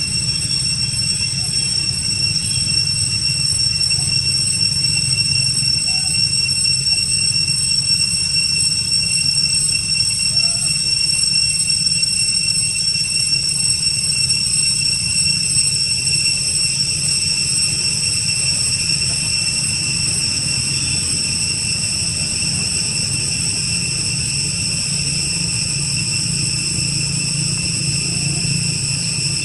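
Steady, high-pitched drone of cicadas, holding one unbroken ringing tone, over a low rumble.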